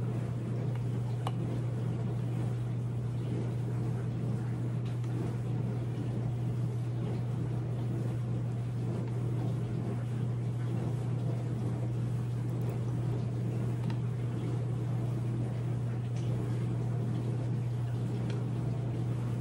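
A steady, unchanging low hum, like a motor or electrical hum from an appliance.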